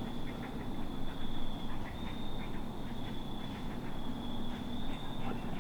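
A series of short, quack-like animal calls, several a second, over a steady high whine.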